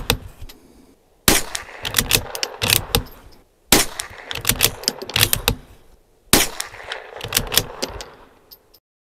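Three shots from a Bergara B14R bolt-action .22 LR rifle, about two and a half seconds apart. Each shot is followed by a clatter of clicks and knocks as the bolt is worked and the next round chambered. The sound stops abruptly near the end.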